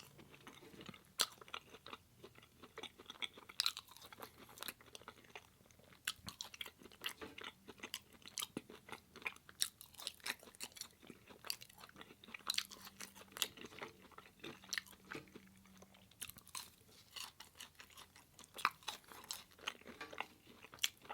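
Close-miked chewing with irregular crunches, a person eating crisp fries and veggie tots.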